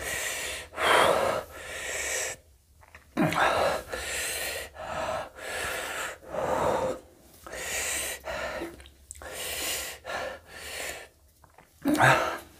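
A man gasping and breathing hard through an open mouth, a harsh breath in or out about every second, from the burn of eating very hot green chillies.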